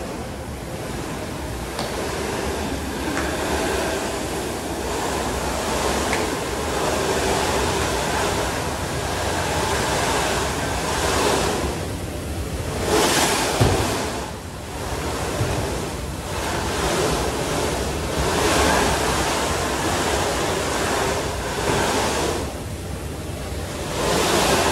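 Snowboard sliding and scraping on the moving carpet of an indoor revolving snowboard slope: a steady rushing noise that swells and fades every few seconds, with a low hum underneath.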